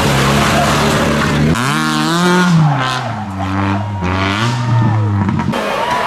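Rally car engine under hard throttle with tyre and road noise. About a second and a half in, the engine note climbs and drops several times as the car is revved and lifted through the corner. It stops abruptly near the end.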